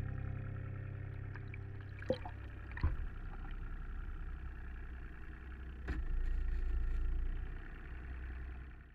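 The boat's engine running, heard muffled through the water as a steady low hum. A few sharp clicks come about two, three and six seconds in, and the sound fades out at the end.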